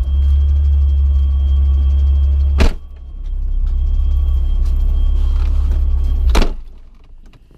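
Supercharged Nissan 350Z's V6 engine running with a loud, steady low drone. A sharp knock breaks it about a third of the way in, and the drone builds back up. A second knock comes near the end, then the drone dies away as the engine shuts off.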